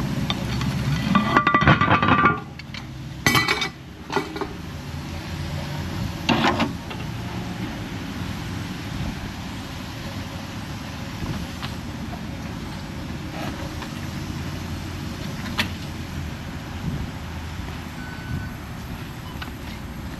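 Truck engine idling steadily, with a loud burst of metallic clinking and a few sharp clanks in the first seven seconds.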